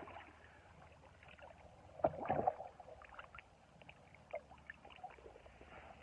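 Water sloshing and splashing as big barbel are handled out of a keepnet and released into the river, with one louder burst about two seconds in.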